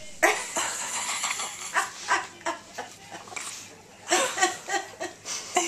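Hiccups repeated in quick succession: about ten short, sharp, voiced yips, in two runs with a lull in the middle.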